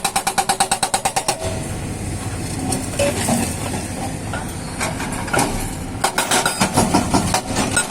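Excavator-mounted hydraulic rock breaker hammering rapidly, about ten blows a second; it stops about a second and a half in, leaving the excavator's engine running with a few clanks, then starts hammering again about six seconds in.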